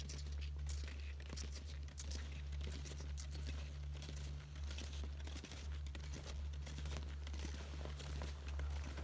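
Ski-touring skis on climbing skins sliding and crunching over crusty snow, with ski poles planting, many short crunches in an uneven stride rhythm over a steady low rumble.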